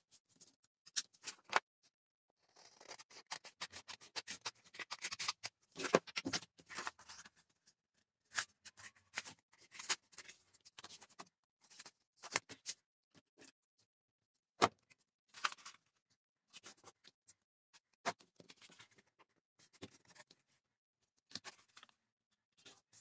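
A sheet of coloured paper rustling and crinkling as it is folded and creased by hand on a tabletop, with a longer stretch of rustling a few seconds in and scattered sharp taps and clicks throughout.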